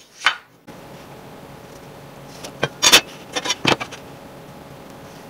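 Pencil drawn along a metal speed square onto a teak board: a few short, sharp scratching strokes about halfway through.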